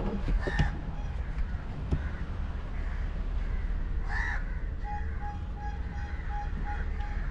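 Crows cawing, once about half a second in and again about four seconds in, over a steady low rumble. From about five seconds in, a rapid, evenly spaced string of short high pips starts.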